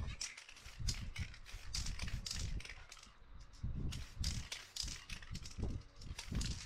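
Aerosol spray-paint can spraying in a quick series of short hissing bursts, with low thuds in between.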